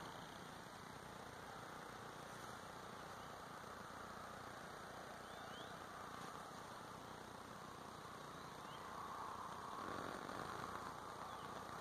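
Faint outdoor garden ambience: a steady low hiss with a few faint short bird chirps. The background noise swells briefly about nine to eleven seconds in.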